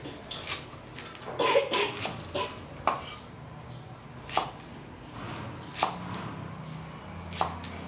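A cleaver chopping green stalks on a thick wooden chopping board: sharp knocks of the blade meeting the board, coming unevenly, with a quick flurry about one and a half to two seconds in and single chops after.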